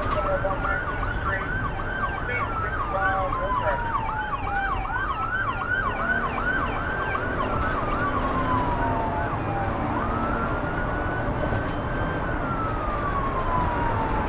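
Police car sirens in a pursuit: a slow wail that climbs, holds and falls over a few seconds, overlapped for about the first half by a fast yelp sweeping about three times a second, with steady road noise beneath.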